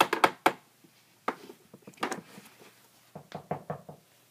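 Series of quick, light knocks and taps on a hard surface, coming in several short clusters.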